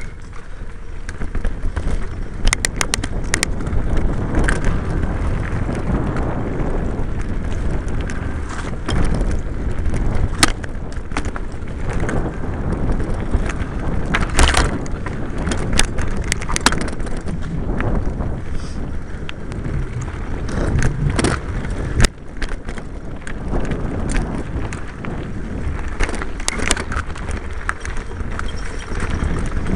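Mountain bike ridden over a rough dirt singletrack, heard from a camera mounted on the bike: a continuous rumble of tyres on the trail with frequent sharp knocks and rattles of the bike over bumps, the sharpest about two-thirds of the way through.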